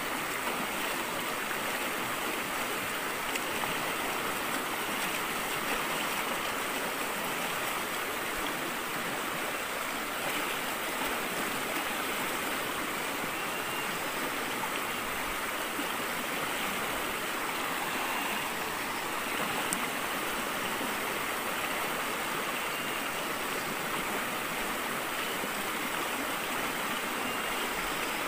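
A flooded river of muddy brown water rushing past steadily, a continuous full-bodied roar of fast-flowing water swollen by the flood.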